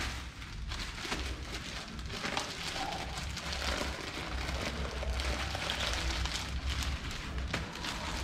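Plastic shipping mailer crinkling and tearing as it is ripped open by hand, a dense, uneven crackle.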